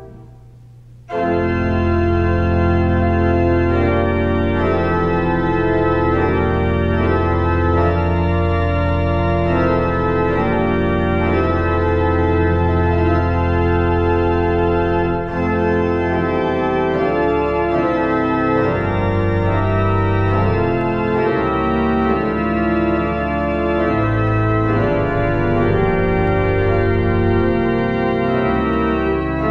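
Pipe organ playing slow, sustained chords over long-held low bass notes. The sound drops away at the start and a new chord enters about a second in.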